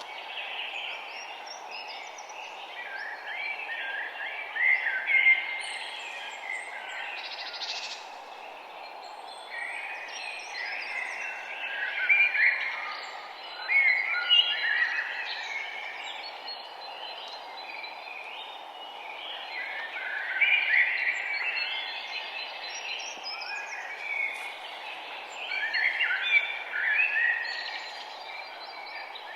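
Songbirds singing in bouts of quick, chirping and warbling phrases, over a steady low background rush.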